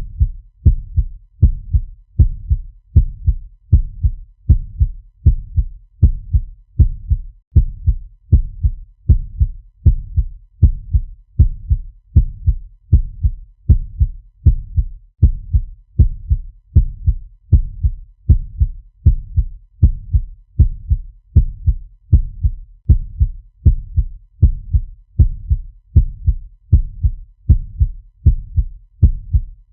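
Heartbeat sound effect: deep, low thumps in lub-dub pairs, repeating at an even, quick pace of a little more than one beat a second.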